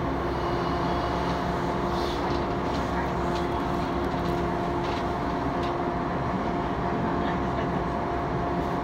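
Electric train running, heard from inside the car: a steady motor hum over the rumble of wheels on rail, with a few light clicks.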